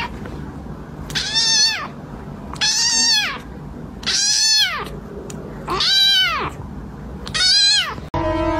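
Ginger kitten meowing five times, about a second and a half apart; each meow is a high call that rises and then falls in pitch.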